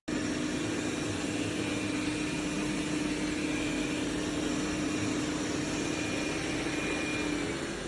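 Dreame robot vacuum running, a steady machine noise with a low hum that starts suddenly and drops a little in pitch near the end.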